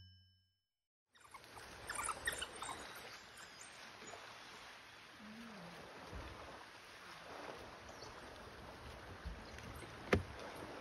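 Faint river-water and open-air ambience with light trickling, starting after about a second of silence. There are a few soft clicks about two seconds in and a single sharp knock near the end.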